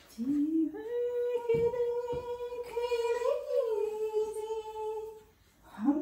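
A woman's voice singing: a short rising start, then one long held note lasting about four seconds, with a slight lift in pitch midway. Two faint knocks sound underneath about a second and a half and two seconds in.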